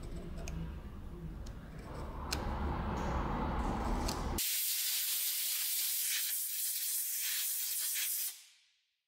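Compressed air blasting onto the armature and commutator of a small brushed electric motor: a loud, steady hiss that starts about four seconds in and fades away near the end. Before it, light scraping and clicks of a pick working between the commutator segments.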